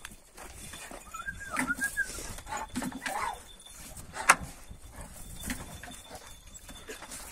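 Dogs whimpering at feeding time: a high, wavering whine about a second in and a few short low calls. A single sharp knock a little after four seconds in is the loudest sound.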